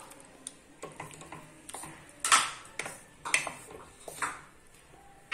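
Wooden spatula stirring chopped tomatoes into onion paste and oil in a steel kadhai: a series of short scrapes and knocks against the pan, the loudest about two seconds in.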